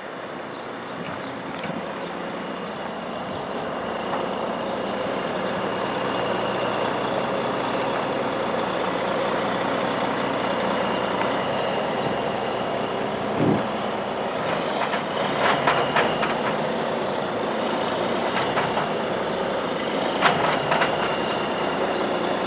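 Semi truck backing slowly, its diesel engine running steadily and growing louder as it comes closer, with a few short sharp sounds about two-thirds of the way through and near the end.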